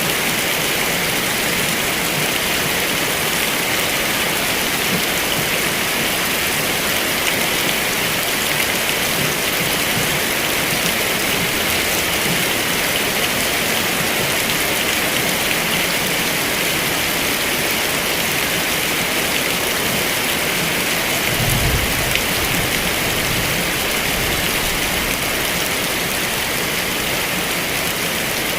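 Heavy rain falling steadily, a dense even hiss. About three quarters of the way through, a low rumble comes in and lasts a few seconds.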